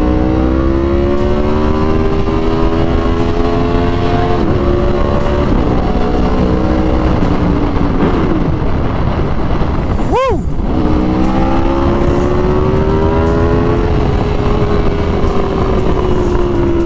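Aprilia RSV4 1100 Factory's V4 engine through an SC Project SC1-R exhaust, pulling hard through the gears with the pitch climbing and stepping down at each upshift, echoing in a tunnel. About ten seconds in there is one sharp rev blip, then the engine pulls up again and eases off near the end.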